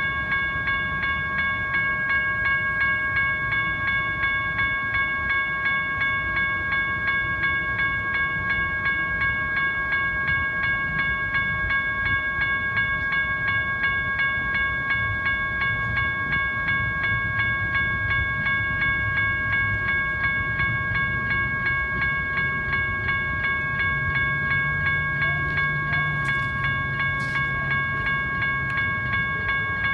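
Electronic railroad crossing bell ringing continuously, a fast, even run of strikes with a bright, ringing tone. A low rumble builds underneath in the second half, and there are a few sharp clicks near the end.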